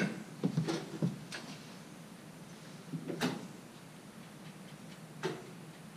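Metal clinks and knocks from hand work on a powered-off Brunswick A2 pinsetter: a quick run of knocks in the first second or so, a sharper clink a little after three seconds, and another knock a little after five.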